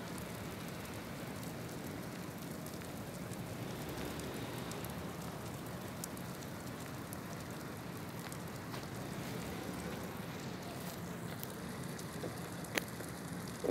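Steady crackling hiss of a burning street-light pole throwing a shower of sparks, with scattered small pops and one sharp crack near the end.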